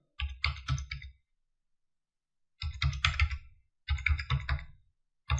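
Computer keyboard being typed on: quick bursts of a few keystrokes each, three bursts with short silent pauses between them and a fourth starting near the end, as a card number is keyed in.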